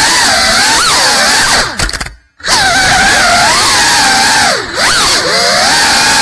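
GEPRC Cinelog 35 cinewhoop's brushless motors and ducted propellers whining, heard from on board, the pitch rising and falling constantly with the throttle. The sound cuts out briefly about two seconds in as the throttle is chopped, then comes back, with another short dip near the end.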